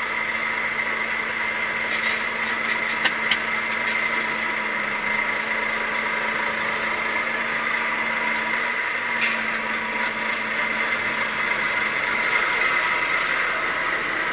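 Heavy goods lorry's diesel engine idling and creeping forward at walking pace, heard from inside the cab as a steady running noise with a thin high whine over it. A few light clicks come about two to three seconds in.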